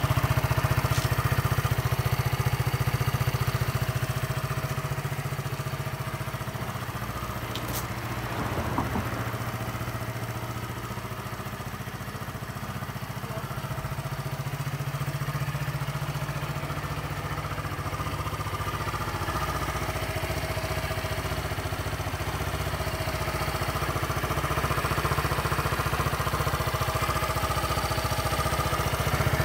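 Yamaha Vity 125 scooter's single-cylinder four-stroke engine idling steadily. It is a little fainter in the middle and grows louder again near the end.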